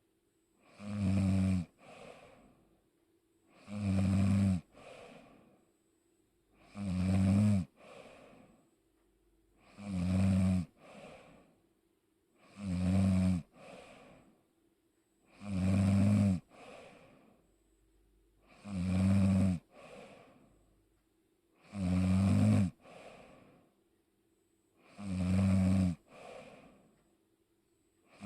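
A person snoring in a steady rhythm: a loud, rattling snore about every three seconds, each followed by a softer breath.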